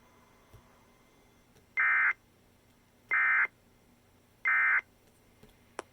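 Emergency Alert System end-of-message signal: three short, identical buzzing bursts of SAME digital data tones, about a second apart, marking the end of a National Weather Service tornado warning broadcast.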